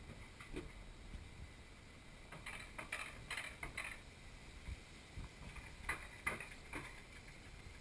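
Rail-guided bobsled coaster sled running along its track: a low rumble with two spells of quick clicking and rattling, a few seconds in and again near the end.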